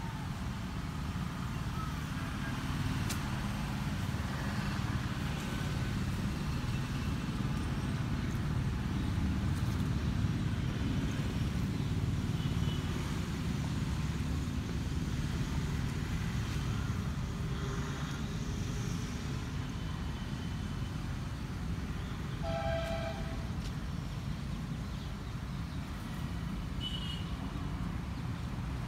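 Steady low rumble of distant road traffic, with a vehicle horn sounding one short toot about three-quarters of the way through.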